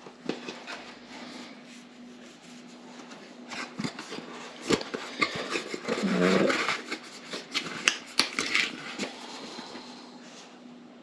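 Rustling and clicking as RC car parts and their packaging are handled, over a steady low hum. About six seconds in comes a short pitched sound, like a brief whine.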